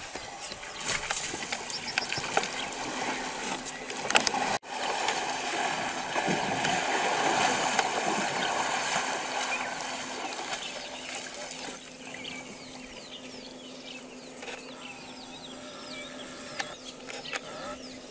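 Elephants wading and splashing through a shallow waterhole, with water sloshing around their legs, while small birds chirp in the surrounding bush.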